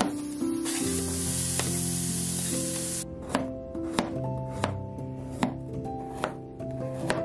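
Chef's knife chopping carrot on a plastic cutting board: sharp taps about every two-thirds of a second, over background music. About a second in, a hiss lasts for about two seconds.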